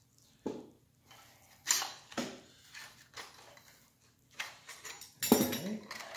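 Metal clinks and knocks from a bicycle triple-tree fork being handled while its clamp bolts are loosened with an Allen key: several separate knocks, the loudest about five seconds in.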